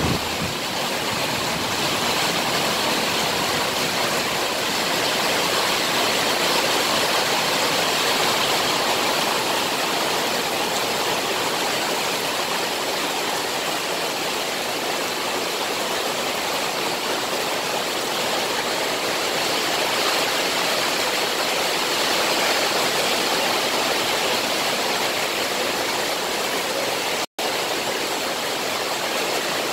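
Heavy rain pouring down onto a wet road, a steady, even hiss, broken by a split-second gap near the end.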